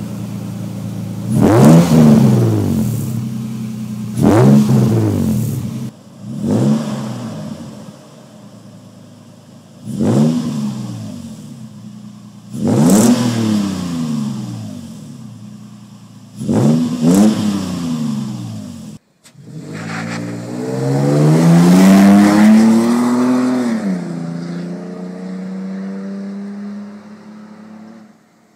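Toyota Tacoma pickup's exhaust through an aftermarket 13-inch Wickedflow muffler on a 2.25-inch TRD cat-back, idling and then revved in six quick throttle blips a few seconds apart, each a sharp rise and fall in pitch. After a brief break it makes one longer, slower rev, then settles to a steadier, lower note that fades away near the end.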